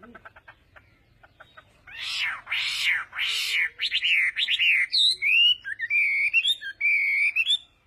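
Birds calling: faint rapid ticks at first, then about two seconds in three loud harsh calls, followed by a run of quicker whistled chirps that rise and fall in pitch.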